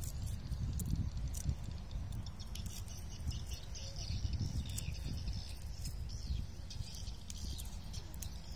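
Outdoor lakeside ambience: wind rumbling on the microphone, with faint high chirps and clicks scattered through it.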